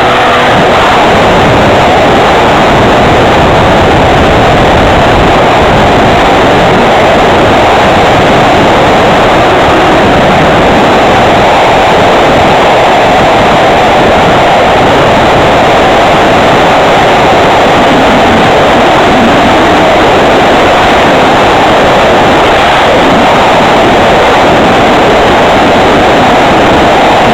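Home-made RC plane in flight heard through its wing-mounted camera: a loud, steady rush of airflow over the microphone mixed with the plane's motor.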